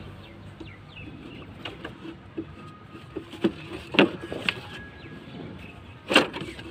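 Plastic air-filter housing of a Mahindra Bolero being twisted and pushed onto its intake by hand: scattered plastic knocks and clicks, the two loudest about four and six seconds in.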